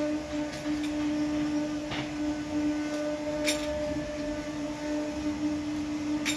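A machine motor running steadily with a constant, even-pitched hum, joined by a few light clicks.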